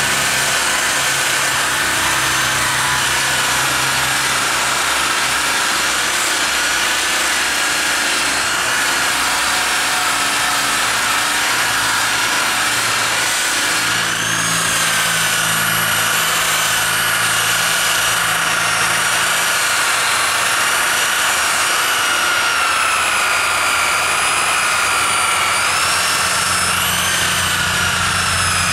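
Electric buffer running steadily, its motor whine dipping and wavering in pitch as the pad is pressed against the bare aluminum grill shell to polish it.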